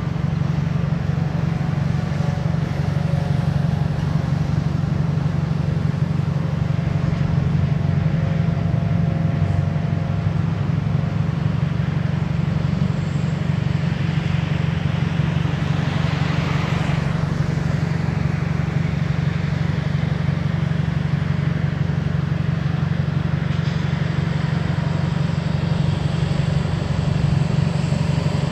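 A steady low engine drone, with a brief rushing hiss about two-thirds of the way through.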